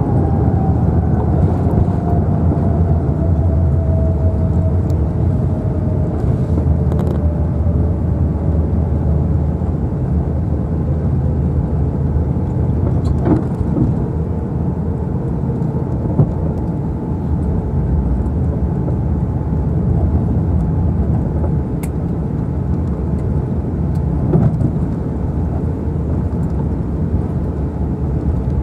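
Cabin noise of an Airbus A350-900 rolling on the ground after landing: a loud, steady low rumble from the wheels and airframe, with the whine of its Rolls-Royce Trent XWB engines falling slowly in pitch as they wind down from high thrust. There are a couple of short knocks partway through, typical of the wheels going over pavement joints.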